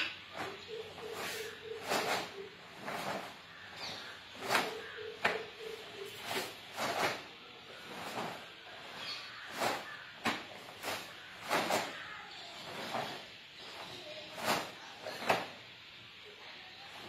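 A karateka's gi snapping and his sharp, forceful exhalations as he strikes and kicks through a kata, in short bursts that come irregularly, about one every half second to second. Twice in the first six seconds a steady low two-note tone sounds in the background for about two seconds.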